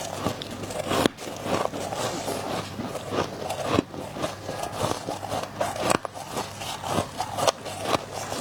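Close-miked chewing of crunchy frozen ice, a dense crackling of crunches with sharper snaps now and then.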